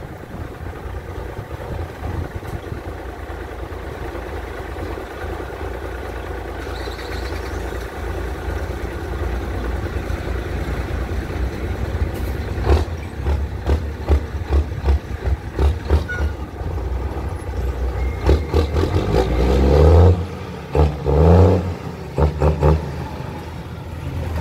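Cummins L10 straight-six diesel in an International truck, running as the truck pulls off slowly. From about halfway the truck clatters and knocks over rough ground, and near the end the engine revs up twice as it climbs over a dirt mound.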